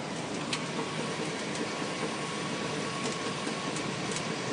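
2000 Cadillac Escalade drivetrain running at low speed as it slows to a stop: a steady mechanical hum with a few faint, irregular clicks. The owner suspects the clicking comes from a transfer case that had earlier run dry of fluid.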